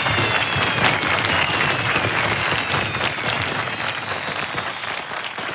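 Crowd applauding with a few long whistles that slide slowly down in pitch, the whole fading away over the last couple of seconds.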